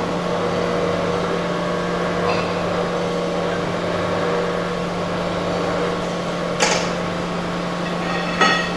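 Rebar upset-forging machine running with a steady motor hum, and two short sharp clacks near the end.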